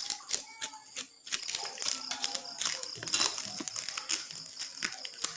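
Parcel packaging being handled and unwrapped by hand: a run of irregular crinkles and short crackles.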